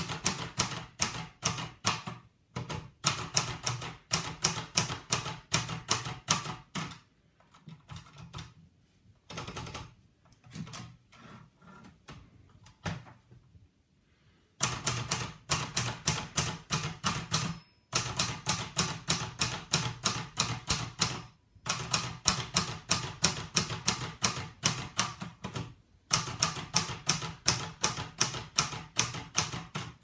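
Hermes Baby portable typewriter being typed on: quick runs of sharp keystrikes, several a second, with a sparser, quieter stretch in the middle and a few short pauses between runs.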